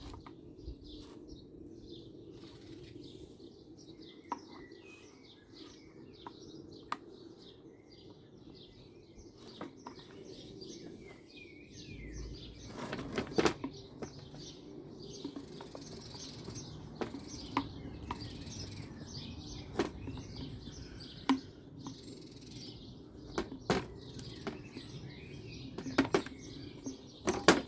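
Scattered light clicks and knocks from hands working small plastic and rubber parts, as the fuel line grommet is eased into a petrol strimmer's fuel tank, with a louder cluster of knocks about halfway through. Birds chirp faintly in the background.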